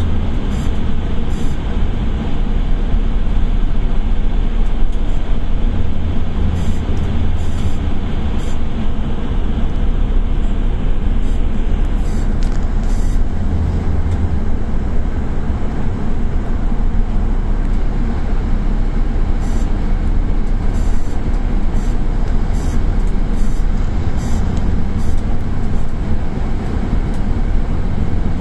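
Steady engine and tyre noise from inside the cab of a heavy vehicle driving through a road tunnel, dominated by a deep low rumble.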